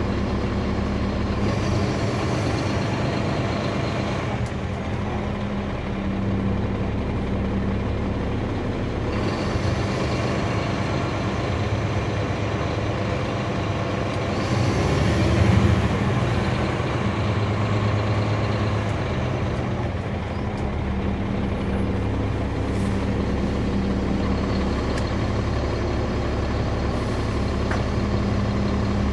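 Caterpillar C13 diesel engine of a NABI 40-foot transit bus heard from the rear seats, running steadily under way, its note shifting several times as the bus changes speed, with a louder moment about halfway through.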